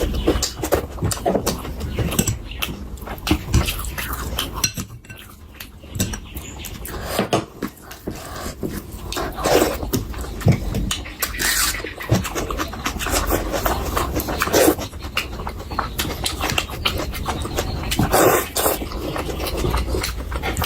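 Close-miked eating sounds: chewing, lip-smacking and wet mouth noises from someone eating curry, in an irregular run of short clicks and smacks.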